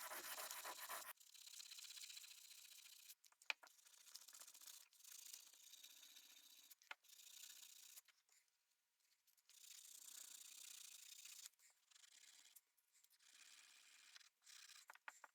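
Faint, scratchy rubbing of brass wool scrubbed along a rusty steel Bowie knife blade, coming in stretches with brief pauses and a few small clicks; louder in the first second. It is the brass wool taking off loose rust after a rust-remover treatment.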